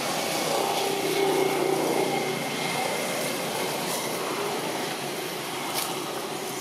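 Steady drone of a motor vehicle running, with slowly shifting engine tones and a small click near the end.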